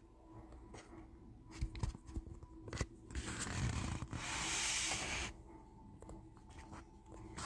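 Handling noise: scattered light clicks and knocks, with a rubbing hiss that rises and lasts about two seconds in the middle.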